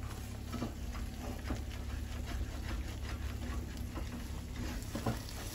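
Thick chicken pot pie filling popping and sputtering faintly in the pan on residual heat after the gas is turned off, as a scatter of small irregular ticks over a low steady hum.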